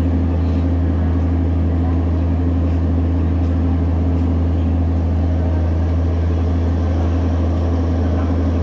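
Steady, loud low hum of a train's machinery, unchanging throughout, with a few faint clicks in the first few seconds.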